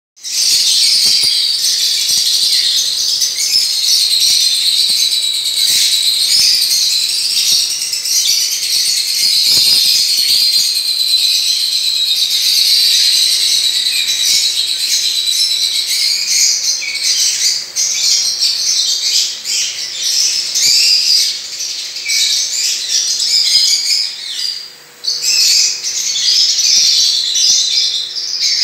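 A colony of finches and Java sparrows chirping and calling all at once in an aviary: a dense, continuous high chatter, with a brief lull near the end.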